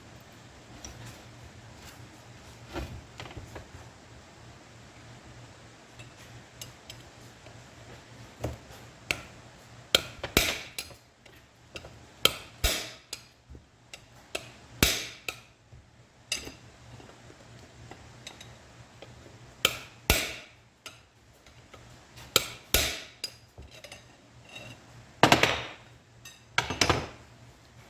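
Hammer striking metal clutch parts in irregular blows, some singly and some in quick pairs, a few with a short metallic ring.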